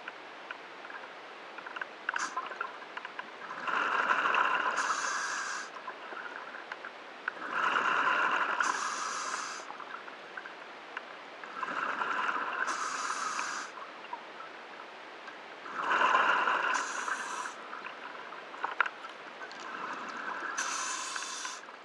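A scuba diver breathing underwater through a regulator: five breaths about four seconds apart, each a couple of seconds of hissing and bubbling, over a steady low hiss.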